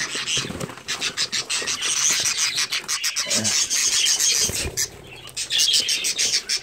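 Budgerigars stressed from shipping, squawking and chirping rapidly inside a cardboard box, with scratching against the cardboard as a hand reaches in and grabs one.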